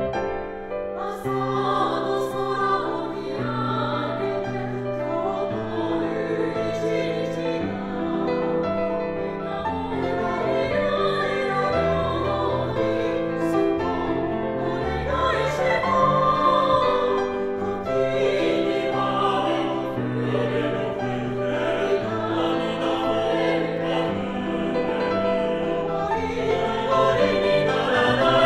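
Mixed four-part choir singing a Japanese pop song in a choral arrangement, with piano accompaniment.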